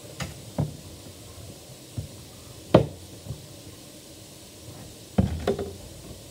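Handling knocks and bumps as a doll is moved about close to the microphone: a few scattered knocks, the loudest about three seconds in, and a quick cluster of knocks near the end.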